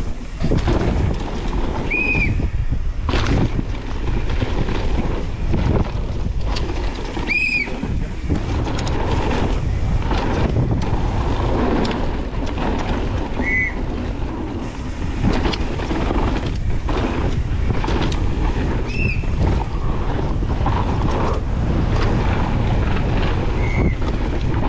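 Downhill mountain bike ridden fast over rough ground: wind rushing over the microphone, the bike rattling and knocking over roots and rocks, and a few brief high squeals from the brakes.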